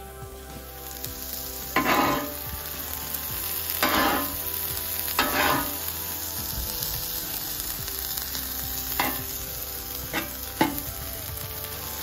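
Diced onions sizzling on a Blackstone griddle's flat steel top, with a metal spatula scraping across the griddle several times as they are stirred.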